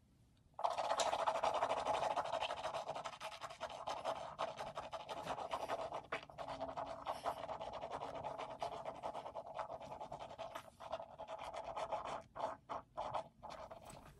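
Mouthwash being swished around inside the mouth, a fast wet sloshing through the teeth and cheeks. It starts about half a second in and breaks into a few short separate swishes near the end.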